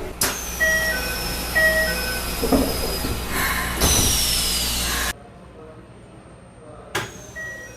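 Keikyu train door chime: a two-note ding-dong sounds twice in quick succession over train rumble, with a high falling whine. The sound cuts off abruptly just after 5 s, and the same whine and chime start again about 7 s in.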